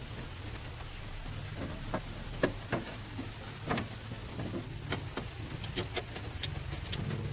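A steady low mechanical hum with irregular sharp clicks and taps, like metal parts and tools being handled during repair work.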